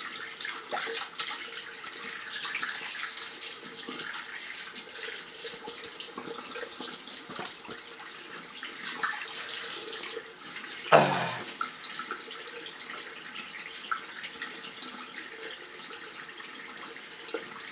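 A tap running into a bathroom sink while someone rinses toothpaste off their face, with small splashes. There is one short louder sound about eleven seconds in.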